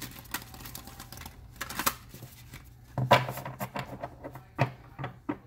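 A tarot deck being shuffled by hand: several bursts of rapid flicking and slapping of cards, the loudest a little after three seconds in, over a faint steady low hum.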